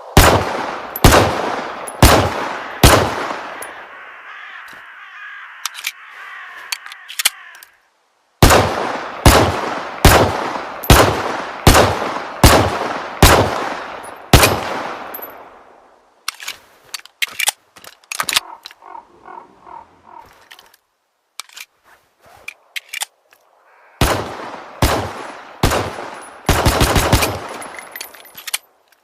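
Pistol gunshots from a Kora-1911 pistol sound effect, fired in three strings of single shots with each report ringing out. Fainter clicks and rattles come between the strings, and a quick run of shots comes near the end.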